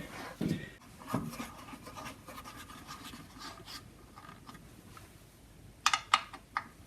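Faint scraping and rubbing as the planer thicknesser is handled by hand, then a quick run of sharp clicks and knocks near the end.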